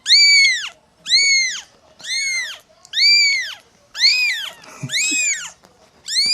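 Young kittens meowing in a steady string of high-pitched cries, each rising then falling in pitch, about one a second, with two kittens overlapping a little past the middle.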